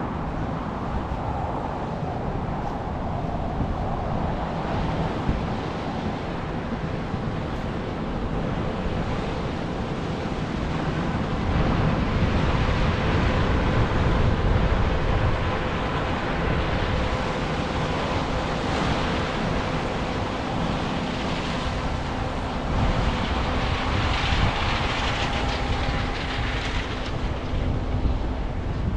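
Large farm machine running steadily under a low rumble, with wind noise on the microphone; it swells a little louder twice.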